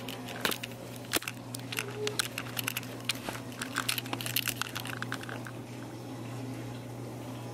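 Scattered light clicks and knocks of things being handled on a counter, over a low steady hum.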